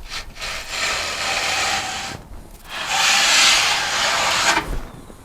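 A hand tool drawn twice along the edge of a wooden drawer front, two long rasping strokes that trim and ease the freshly applied edge banding.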